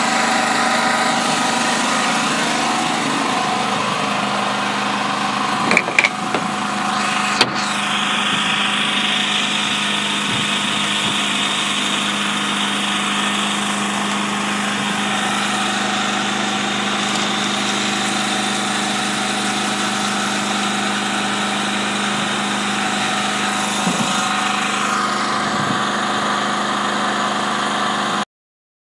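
Yanmar 3GM30 three-cylinder marine diesel running steadily at idle, with a few sharp clicks about six and seven and a half seconds in.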